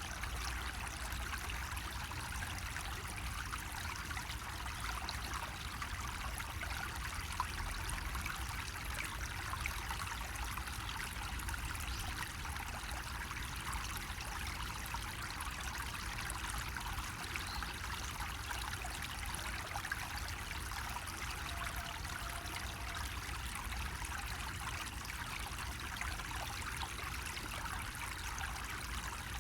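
Water trickling steadily from a bamboo spout, an even splashing flow with no pauses, over a low steady rumble.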